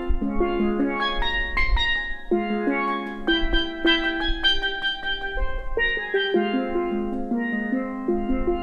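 Steel pan (steel drum) music: a quick melody of struck, ringing notes, with a low bass underneath.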